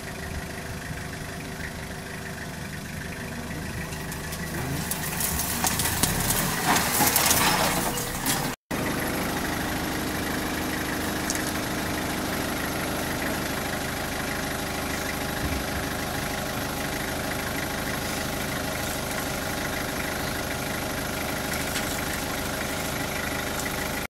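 A vehicle engine idling steadily. From about five seconds in, a louder, rough rushing noise swells for about three seconds and breaks off abruptly.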